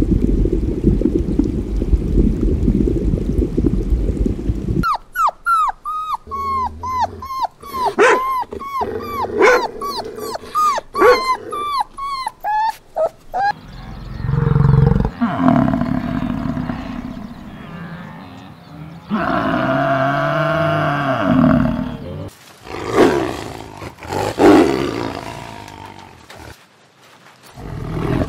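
Different animal calls one after another. After about five seconds of low rumble comes a rapid run of short, falling chirps lasting about eight seconds. Then come several lower, drawn-out calls, and the last call comes near the end.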